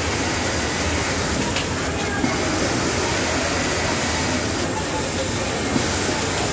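Steady mechanical whirring din of industrial sewing machines running, with a constant low hum and no pauses.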